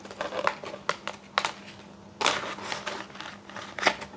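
Thin plastic bag crinkling and rustling in the hands as a model kit's clear glazing sprue is drawn out of it, with several sharp clicks of hard plastic; the longest crinkle comes about two seconds in.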